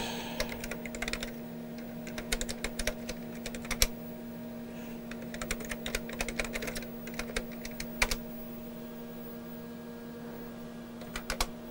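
Typing on a TRS-80 Model 16B keyboard: quick runs of key clicks, one through the first four seconds or so and another from about five and a half to eight seconds, with a few more keystrokes near the end. A steady low hum runs underneath.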